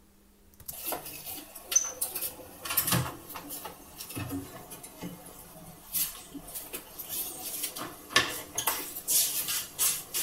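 An oven door opening and a baked tart in its dish being taken off the metal oven rack and set down on the hob: a run of clatters and knocks of dish against metal rack and glass, some sharp and loud, with oven mitts rustling between them.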